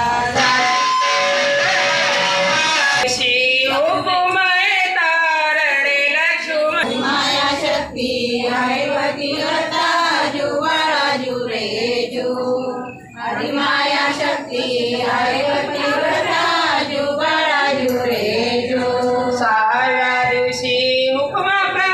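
Women singing a devotional pālaṇā, the cradle song for Ram Navami, with musical accompaniment: a continuous melody with no pause.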